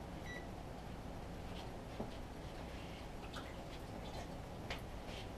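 Quiet kitchen with a low steady hum. A short high electronic beep sounds right at the start, then scattered light clicks and knocks follow, the clearest about two seconds in and near the end.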